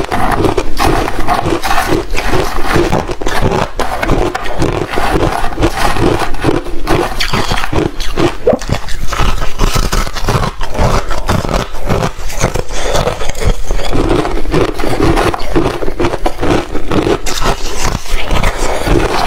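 Ice being bitten and chewed close to the microphone: a loud, dense, unbroken run of crunches and cracks.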